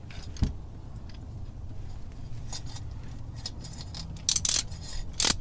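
Oil filter wrench clicking and clattering against a new oil filter as it is worked tight, the tool slipping on the oily filter. One sharp click about half a second in, then a quick run of louder metallic clicks near the end, over a faint steady low hum.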